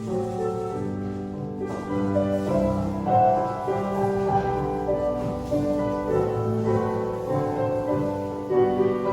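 Instrumental background music led by piano, with held chords changing about once a second.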